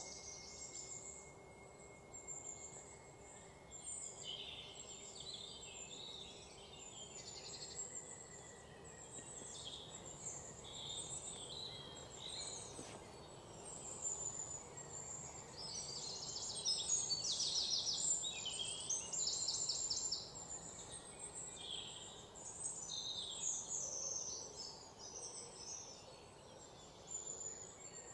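Birds chirping and calling, many short high notes overlapping, busiest and loudest past the middle, where fast rattling trills come in.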